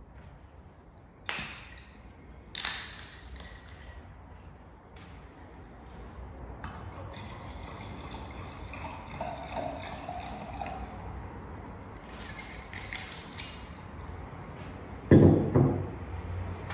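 Two sharp clicks as the screw cap is twisted off a wine bottle, then wine poured from the bottle into a stemmed glass for several seconds. Near the end the glass bottle is set down on the wooden table with a loud double knock.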